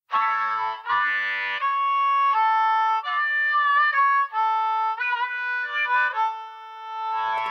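Background music: an instrumental passage with a melody of held and bending notes over sustained chords, starting abruptly.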